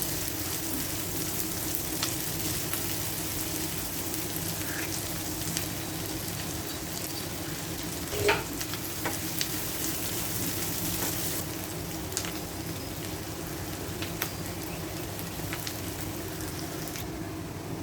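Chopped shallots sizzling as they sauté in hot oil, stirred now and then with a utensil that knocks and scrapes against the pan; the loudest knock comes about eight seconds in.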